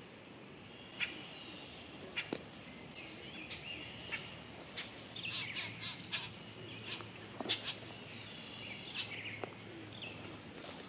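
Wild birds chirping and calling at dawn: scattered short chirps and gliding calls, busiest in the middle, with a few sharp clicks among them.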